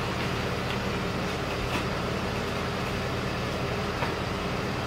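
A vehicle engine running steadily at idle: a low, even rumble with outdoor noise around it.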